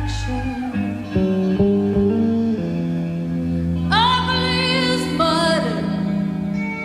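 Live band music from an FM radio broadcast recorded on cassette tape. A woman sings a held, wavering phrase about four seconds in, over bass and guitar.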